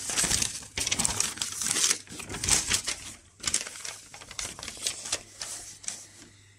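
A large folded paper sheet rustling and crackling as it is handled and unfolded, loudest in the first few seconds and tapering off toward the end.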